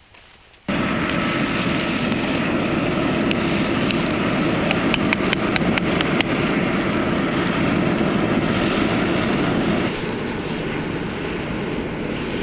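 Charcoal-and-wood fire in a backyard pot forge burning hard under forced air, a steady rushing noise that starts abruptly about a second in. Sharp crackles and pops come several times in the middle, and the level drops slightly near the end.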